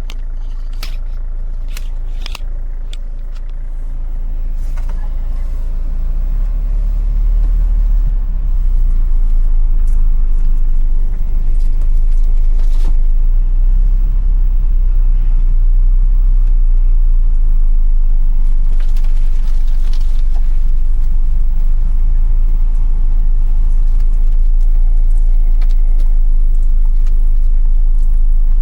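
Vehicle on the move: a low engine and road rumble that builds over the first several seconds and then runs steady, with a few sharp clicks near the start.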